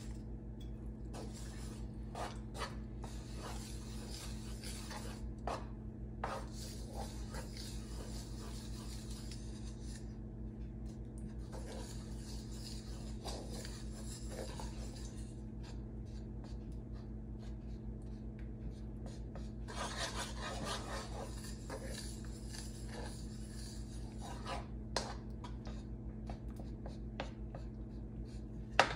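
Wooden spatula scraping and stirring lumps of ghee around a metal wok in irregular rasping strokes, over a steady low hum. One sharp knock near the end.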